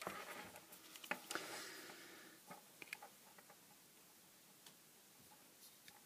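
Faint handling noise: soft rustling and a few light clicks as the small plastic lamp and a magnifier are held and moved, dying away to near silence about halfway through.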